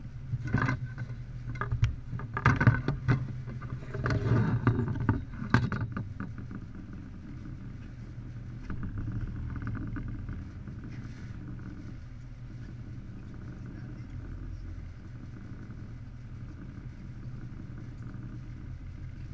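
A fishing boat's engine running steadily, with a cluster of knocks and thumps in the first six seconds.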